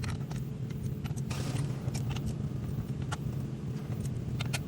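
Scattered light metallic clinks and taps of tools and parts being handled, over a steady low hum.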